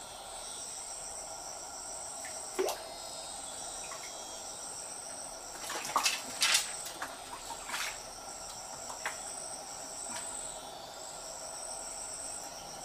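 A steady high insect chorus, with a few short splashes and knocks of water and handling, the loudest pair about six seconds in, as a freshly caught catfish is dealt with at a bucket of water.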